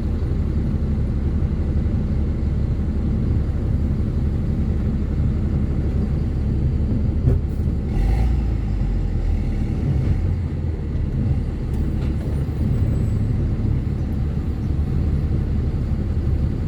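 Ford Cargo 2428 truck's diesel engine running with a steady low rumble. About eight seconds in there is a brief sharp sound, and the rumble deepens for a couple of seconds after it.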